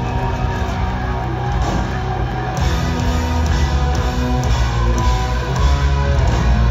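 Live rock band playing loud electric guitars, bass, keyboards and drums, heard from the audience in a concert hall; the low end and drum hits come in heavier about two and a half seconds in.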